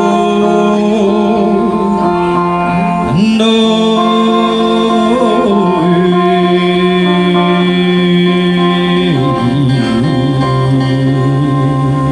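Live music: a singing voice holding long, wavering notes over a sustained accompaniment, moving to new pitches about 3 and 9 seconds in.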